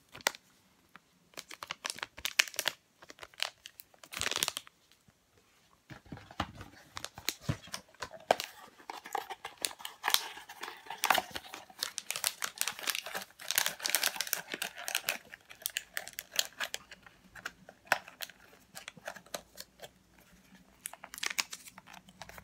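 Plastic sample collection bag crinkling and rustling in the hands as it is folded, sealed and packed into its return box, with irregular crackles and a short lull about five seconds in.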